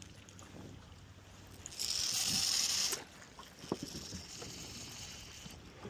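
A sharp hiss lasting about a second that starts and stops abruptly, followed by a few light knocks.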